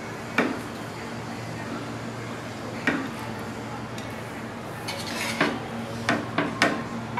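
Serving spoon clinking against a pan as biryani rice is scooped out, six sharp knocks spread out, three of them quickly together near the end, over a steady low hum.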